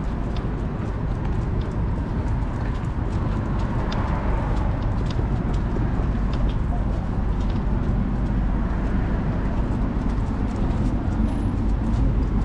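Steady low rumble of city traffic and the body-worn camera moving, with scattered light clicks of footsteps on the pavement during a walk with a leashed dog.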